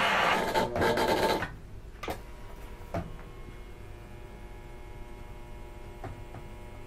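Lionel O gauge GS-4 Daylight model steam locomotive's electronic chuffing sound, a rhythmic steam exhaust beat, which cuts off about a second and a half in. After it a steady faint electrical hum remains, with a few single clicks.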